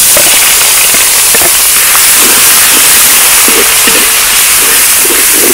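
Pounded shallots frying in hot oil in a wok: a loud, steady sizzle.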